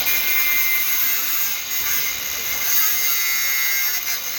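Small angle grinder cutting concrete: a steady, high grinding noise with a thin whine.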